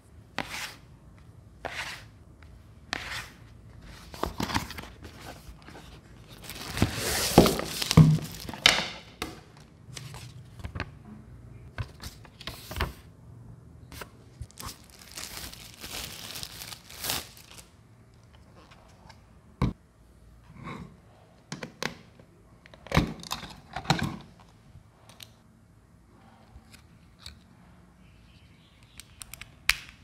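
Unboxing handling noise: a cardboard box and a thin plastic wrapping bag rustle, crinkle and tear in repeated bursts, loudest about a quarter of the way in. This is followed by a few sharp clicks and knocks of the small plastic humidifier's parts being handled.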